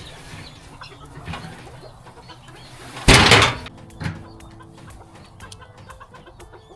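Chickens clucking in the background, with a loud, brief crunching rustle about three seconds in as a bale of straw is broken in half, then a light knock.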